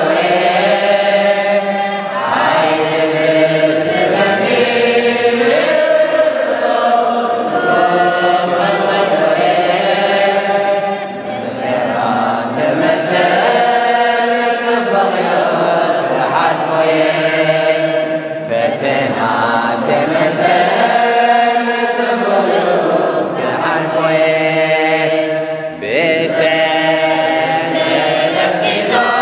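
Eritrean Orthodox Tewahedo mixed choir of men and women chanting a mezmur (hymn) together, in continuous phrases with short breaks between them.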